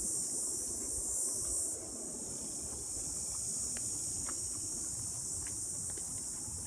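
Steady high-pitched chorus of insects, dropping a little in loudness about two seconds in, over a low rumble and a few faint ticks from footsteps on a dirt trail.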